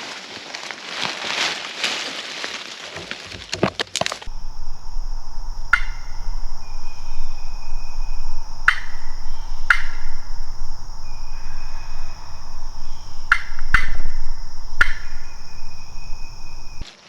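Wild turkeys gobbling and calling, a series of loud sharp calls a few seconds apart, after a few seconds of rustling.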